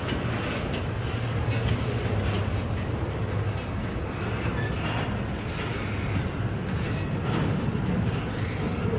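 Freight train rolling through the yard: a steady low rumble with scattered sharp clicks from the wheels on the rails.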